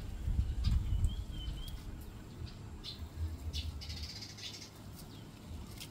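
Small birds chirping: a short wavering whistle about a second in, then several quick high chirps a few seconds later. A low rumble underlies the first few seconds.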